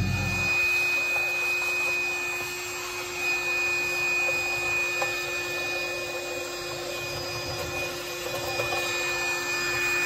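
Shop vacuum running with a steady whine while its hose scrapes over and sucks up grass and debris in the base pan of a package heat pump cabinet.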